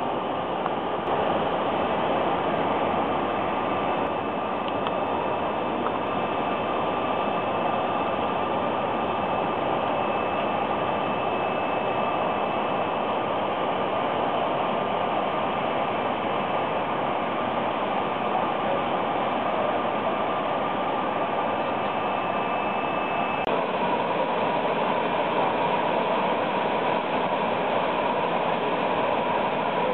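Steady machine whine over a rushing hiss from equipment around a parked airliner on the apron, its main engines not turning; the whine steps slightly lower about three-quarters of the way through.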